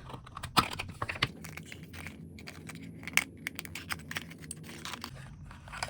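Handling sounds from unboxing a clip-on wireless microphone kit: a run of light clicks, taps and rattles as its small parts and charger are pulled from the packaging, with a sharper click about half a second in.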